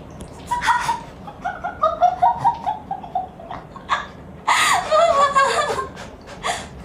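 A person laughing: a quick run of short ha-ha syllables stepping down in pitch, then a louder, longer burst of laughter falling in pitch about four and a half seconds in.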